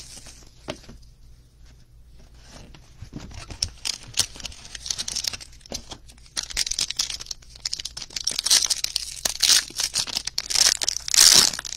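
Silver foil trading-card pack being crinkled and torn open by hand. The crackling is light for the first few seconds, then becomes dense, with its loudest tearing burst near the end.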